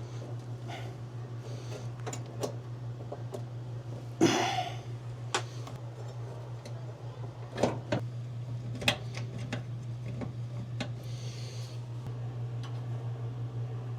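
Small metal clicks and knocks of screws and hand tools as the dryer motor is fastened into its slotted mount, with a louder clatter about four seconds in and two sharper knocks near the eight-second mark, over a steady low hum.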